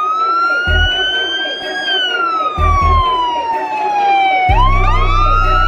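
Police car's electronic siren wailing in a slow rise and fall, dropping to its lowest about four and a half seconds in and then sweeping back up. Deep bass notes sound underneath, held steadily from about four and a half seconds in.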